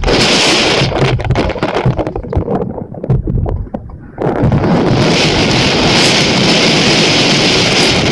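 Heavy typhoon rain pouring, with wind buffeting the microphone. The hiss drops away for about a second and a half around three seconds in, then comes back at full strength.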